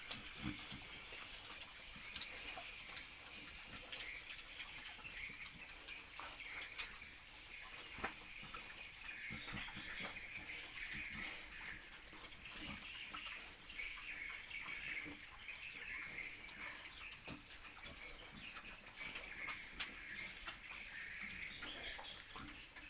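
A pig eating wet feed: continuous wet chewing and slurping with scattered small clicks.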